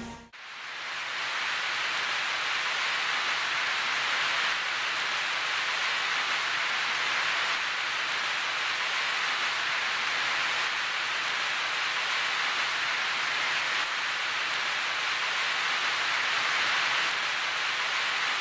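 Rain falling steadily: an even hiss that swells in over about the first second and then holds level.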